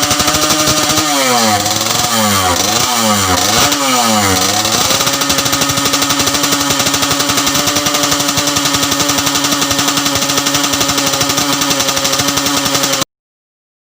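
Modified Yamaha RX-King motorcycle engine running, its throttle blipped about five times in quick succession so the revs rise and fall, then settling back to a steady idle. The sound cuts off suddenly near the end.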